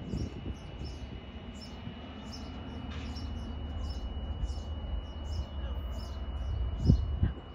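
A station alarm chirping about twice a second over a steady high tone, with the low rumble of an approaching CSX freight train's diesel locomotives slowly growing underneath. A couple of low thumps near the end are the loudest sounds.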